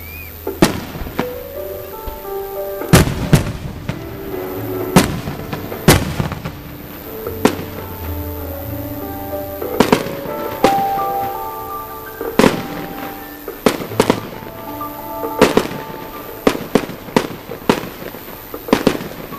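Aerial firework shells bursting in sharp bangs, one every second or two at first, then a rapid run of about three a second in the last few seconds. Music plays under the bangs.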